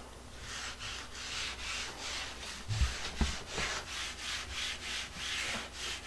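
A rag is being rubbed briskly over a painted wooden closet door with a gloved hand, working stain in for an antiqued finish. It makes a run of short scratchy wiping strokes, about three a second, with two soft bumps against the door about halfway.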